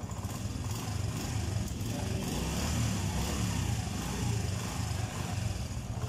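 A brand-new Honda CD 70's small single-cylinder four-stroke engine running steadily at idle, heard up close.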